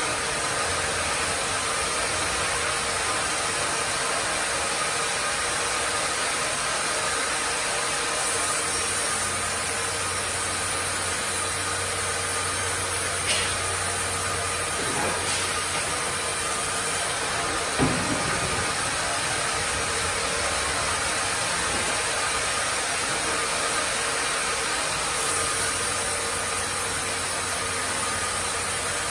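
Carriage sawmill running: a band-saw headrig's steady whir with a faint hum, while the log carriage travels on its rails. A deeper hum comes and goes, and two sharp knocks sound about 13 and 18 seconds in.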